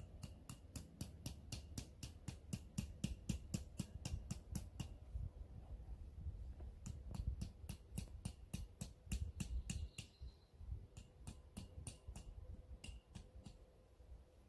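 Metal tent stake being struck into the ground in quick, sharp taps, about four a second, each with a short metallic ring. The taps come in three runs with brief pauses between them.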